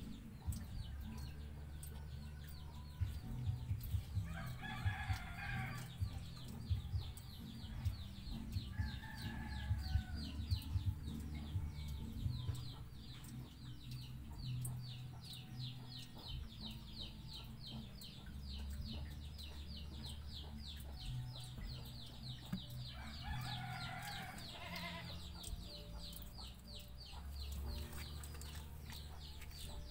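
A rooster crowing twice, about four seconds in and again near the end, over a fast high ticking of about four ticks a second and a steady low rumble.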